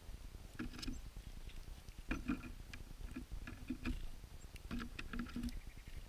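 Small birds pecking and shuffling at a seed feeder close to the microphone: an irregular run of light taps and clicks, some in quick pairs and clusters, loudest about two seconds in.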